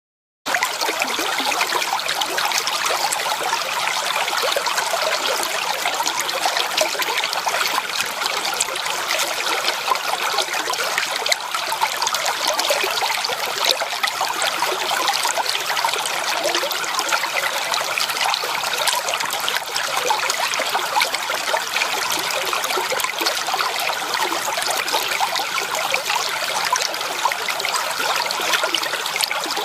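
Small stream of water trickling and babbling over rocks, a steady splashing with many small gurgles.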